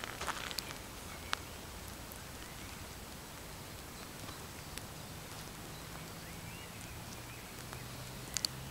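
Footsteps of Nike Dual Fusion Hills trail shoes treading in a flower bed: a few soft crunches of soil and gravel underfoot at the start, one sharp step about a second in, and two quick sharp steps near the end. Between them there is a steady faint outdoor background with a few faint chirps and a low hum that comes in about halfway.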